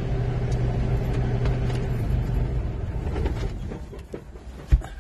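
Kenworth T680 truck's diesel engine idling with a steady low hum, heard inside the cab, which dies away about three to four seconds in. A single sharp knock comes near the end.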